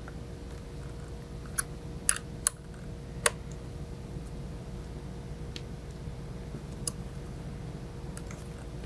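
Light, sharp clicks and taps of a small Allen key and metal camera hardware being handled while a breakout box is wiggled and tightened against the camera body, about half a dozen scattered irregularly over a low steady hum.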